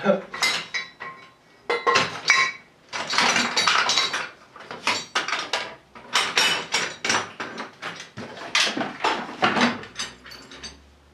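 Loose steel sockets and hand tools clinking and clattering against each other as they are rummaged through in a pile on a workbench, in bursts with short pauses.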